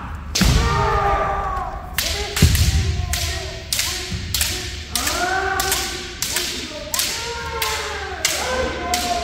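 Kendo practice: a rapid run of sharp bamboo shinai strikes, two to three a second, with heavy thuds of stamping footwork and drawn-out kiai shouts in between.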